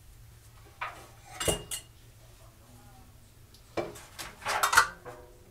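Metal cutlery and kitchen utensils clinking and clattering against each other: a few sharp clinks about a second in, one with a brief ring, then a longer, louder clatter near the end.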